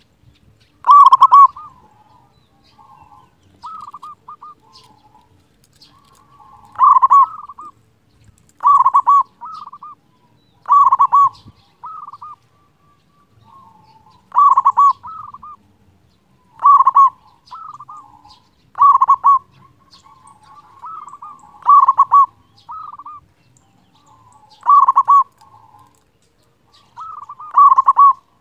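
Zebra dove (perkutut) of a local strain singing loudly, repeating its rolling cooing phrase about every two to three seconds, with softer coos in between.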